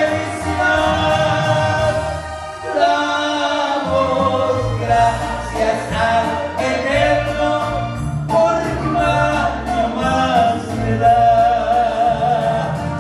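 A man singing a song through a microphone over musical accompaniment, his voice wavering in long held notes over a low bass line.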